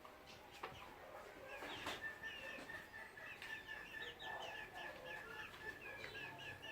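Chickens clucking and chirping, with a quick run of short, falling chirps in the second half over a faint steady high tone.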